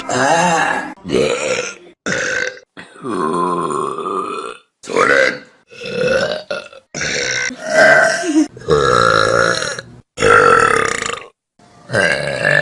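A rapid series of loud human burps, about ten of them from different people, cut back to back with abrupt starts and stops. Most are short; a few are long and drawn out, their pitch wandering up and down.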